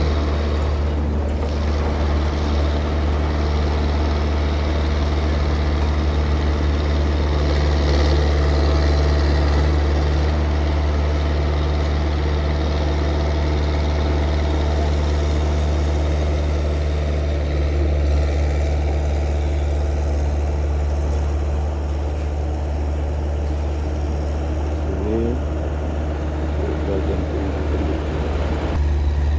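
A motor-vehicle engine running steadily close by, a constant low hum with little change in speed, easing off slightly partway through.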